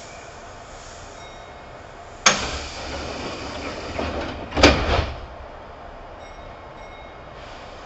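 Passenger sliding doors of a Kintetsu 2800 series train working at a station stop: a sharp clunk about two seconds in, a hiss after it, then a louder, heavier thud about two and a half seconds later.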